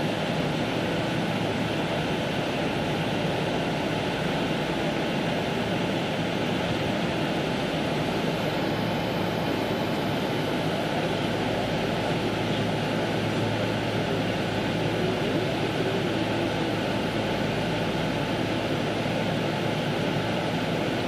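Steady cabin noise inside a Boeing 777-300 rolling on the ground: an even rush of engine and air-conditioning noise with a low hum underneath, holding at one level without spooling up.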